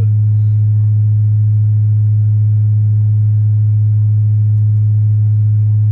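Steady low test tone held at one pitch, played loud through a sound system's subwoofers while the system is being tuned.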